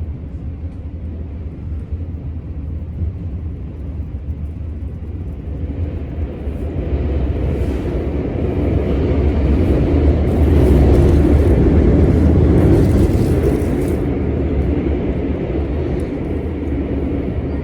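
Keisei Skyliner train running with a low rumble that builds up from about six seconds in, is loudest around ten to fourteen seconds, then eases slightly.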